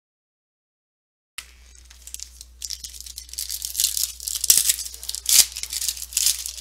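Foil trading-card pack being torn open and crinkled by hand, with a couple of sharp snaps in the second half. It starts with about a second and a half of dead silence.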